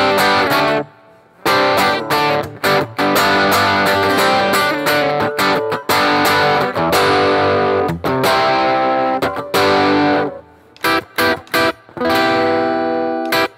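Rickenbacker 330 electric guitar with toaster pickups played through fuzz. It strums a distorted chord riff that stops short several times, then a few quick stabbed chords, then one chord left ringing near the end.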